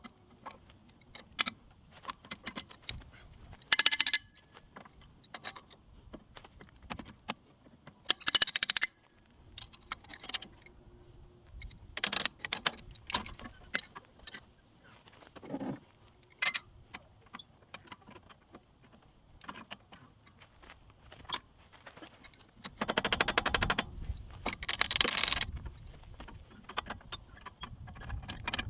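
Wrench and steel hitch parts clinking and clicking as a hydraulic top link is bolted onto a compact tractor's three-point hitch. Scattered metal taps are broken by a few short rattling runs, the longest near the end.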